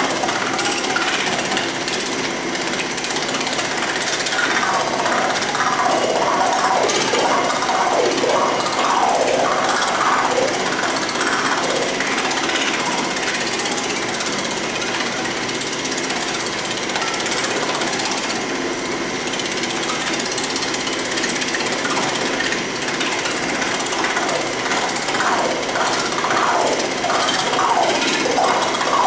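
P-Max Pullmax-style reciprocating power hammer running, its upper die rapidly and continuously pounding a sheet-metal panel as the panel is worked under it, with a metallic clatter that grows brighter in stretches a few seconds in and near the end.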